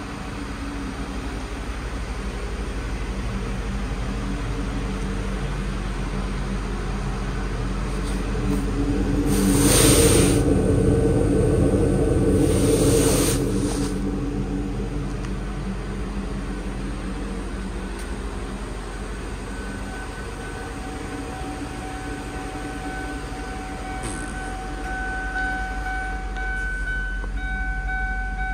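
Ford Thunderbird's 3.9 L V8 idling steadily, its exhaust drawn into a shop extraction hose. It is louder for about four seconds near the middle, and steady high tones join in for the last several seconds.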